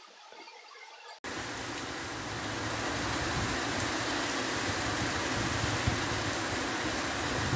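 Heavy rain falling steadily on a street: a loud, even hiss that cuts in suddenly about a second in, after a faint start.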